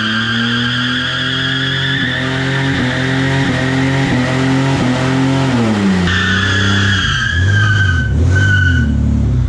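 Holden VN Commodore wagon's V6 held at high revs in a burnout, with the spinning rear tyre squealing steadily. About six seconds in the revs drop and the squeal breaks off, then the engine rises and falls and the squeal returns briefly near the end.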